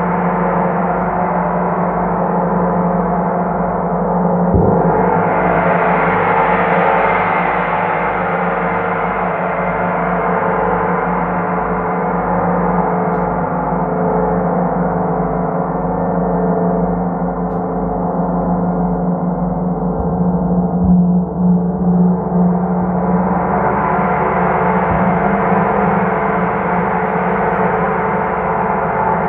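Large hanging gong ringing continuously, a steady deep hum under a shimmering wash. It is struck again about four and a half seconds in, the bright upper shimmer swelling up and slowly dying away. The shimmer builds once more from about twenty-two seconds.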